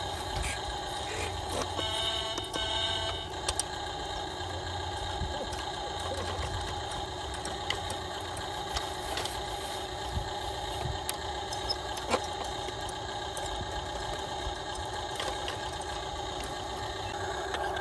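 A steady engine-like idling hum from a radio-controlled construction truck, with a few short knocks and clatter as the toy loader's bucket scrapes and dumps dirt into the truck bed.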